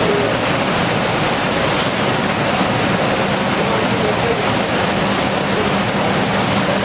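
Steady loud hiss of an automatic spray-painting line running, its spray guns and booth machinery going continuously. A steady low hum joins about three seconds in.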